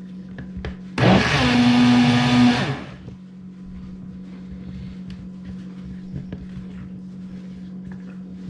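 Hamilton Beach single-serve blender running in one short burst of about two seconds, starting about a second in, while the jar is pressed down to blend, then winding down when it is released. It is blending a thick milk smoothie that has just been thinned with extra milk.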